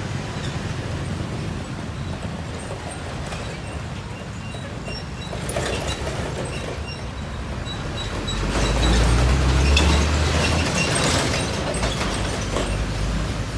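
Train passing on the rails: a steady rumble that grows louder and deeper about eight seconds in, with faint high tones on top.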